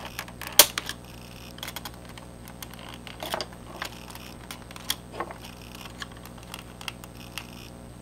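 Scattered plastic clicks and taps as a screwdriver pries at the spacebar of an old rubber-dome keyboard. The sharpest click comes about half a second in, with a handful of softer ones at uneven intervals after it.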